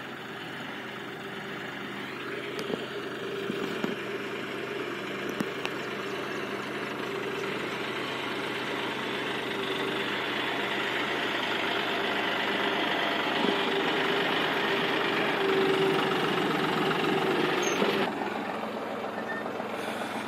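John Deere 5103S tractor's diesel engine running steadily under load while it pulls a cultivator through the soil, with a few sharp clicks early on. It grows louder as the tractor comes closer, then drops away sharply near the end.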